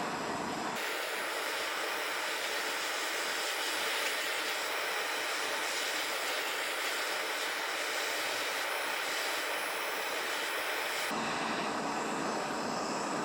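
Handheld gas torch burning with a steady hiss while heating a copper sweat fitting for soldering. The tone of the hiss shifts abruptly about a second in and again near the end.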